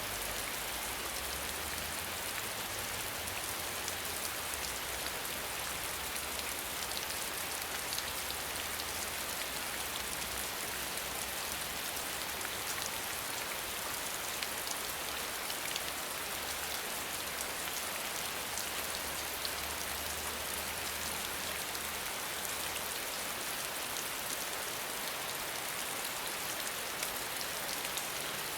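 Steady rain falling, an even hiss dotted with the small ticks of individual drops striking a surface.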